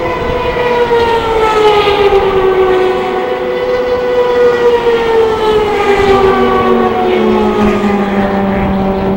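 Several race car engines running at high revs out on the track, their overlapping notes drifting slowly down in pitch. A lower engine note joins about seven seconds in.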